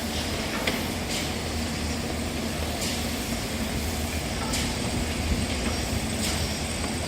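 Construction-site machinery running with a steady low engine hum, and short hissing sounds every second or two.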